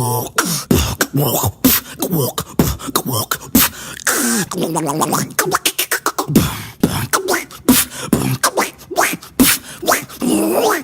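A beatboxer's voice imitating sound effects: a rapid string of mouth clicks and pops mixed with sliding vocal tones that bend up and down, and a short stretch of hissing about four seconds in.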